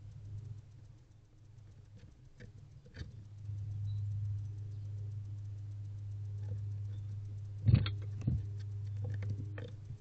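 Barn owls shifting about in a wooden nest box: scattered light scratches and taps, with two louder bumps close together near the end. A low steady hum runs underneath.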